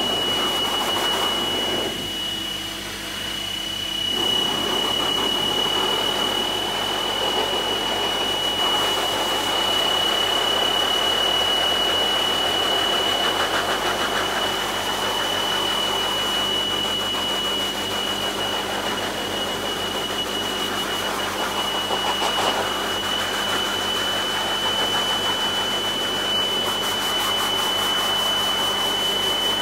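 Pet force dryer (high-velocity blower) running steadily, a loud rush of air from its hose nozzle with a constant high-pitched whine. The rush of air thins briefly about two seconds in, then comes back.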